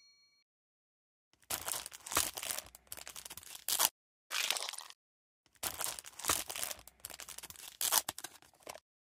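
Dry, crackly tearing and crinkling sound effect in three bursts separated by short silences, starting after a moment of quiet: the ASMR sound given to tweezers plucking bugs from a wound.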